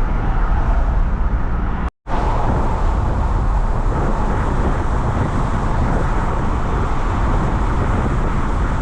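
Steady road noise of a car driving, engine and tyres, with a momentary break to silence about two seconds in.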